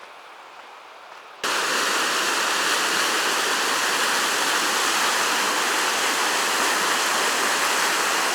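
Loud, steady rush of a large waterfall, starting abruptly about a second and a half in after a quieter outdoor hiss.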